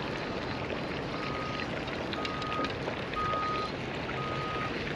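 Backup alarm of a reversing construction vehicle beeping steadily, four even beeps about a second apart, over a steady background rumble.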